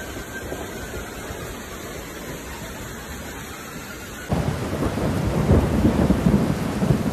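Heavy rain and pouring runoff water: a steady hiss that cuts abruptly about four seconds in to a louder rush with low rumbling.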